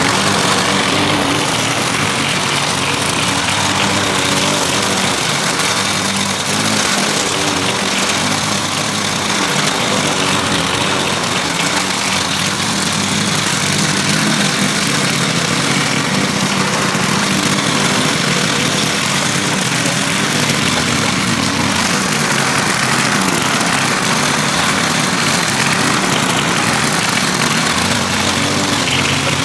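Gas lawn mower engine running steadily under load while mowing, with the blade cutting grass into the bagger.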